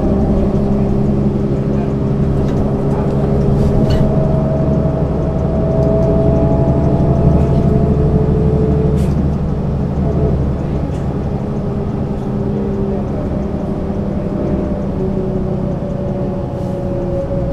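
Mercedes-Benz Citaro C2 city bus's diesel engine running steadily as the bus drives, pulling a little harder with a slight rise in pitch about six to eight seconds in, then easing off about ten seconds in.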